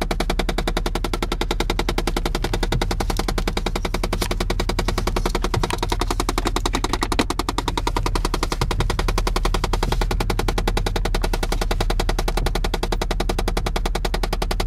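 Rapid, steady, loud knocking from inside the dashboard of a 2006 Chevy Impala: the HVAC air-intake (outside/recirculated air) door actuator motor knocking over and over, which the owner takes for a jammed actuator. Disconnecting that motor's wire later stopped the knocking.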